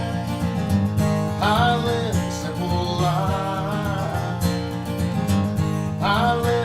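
Gibson J-45 acoustic guitar playing the instrumental close of a country song, a steady run of chords.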